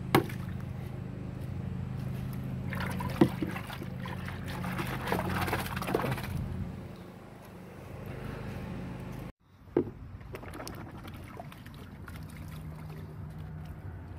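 Water splashing and sloshing in a plastic tub as dish soap is mixed in, strongest between about three and six seconds in, with a sharp knock near the start and a louder one about three seconds in. A steady low hum runs underneath.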